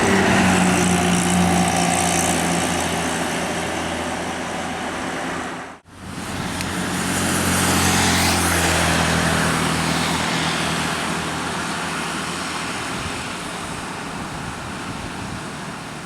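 Large buses going by on a fast road: engine drone and tyre noise. A hard cut about six seconds in, then another vehicle swelling past and fading.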